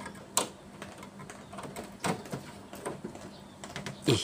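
A few sharp, separate taps of a small hand tool touching a car's sheet-metal body panel.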